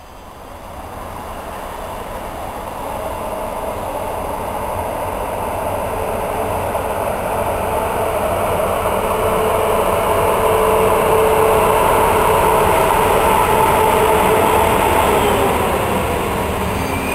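A freight train hauled by a DB class 155 electric locomotive approaches and passes, growing steadily louder over the first ten seconds. A steady whine rides over the rumble of the wheels and drops slightly in pitch as the locomotive goes by, and then the loaded wagons roll past.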